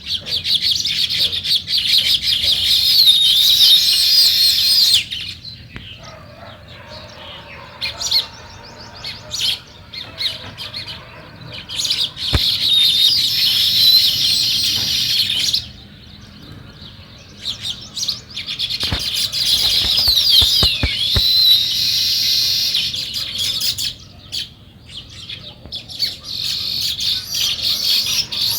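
House sparrows chirping in dense, overlapping bouts of high chirps, broken by quieter gaps of a second or more. There are a few sharp clicks around the middle.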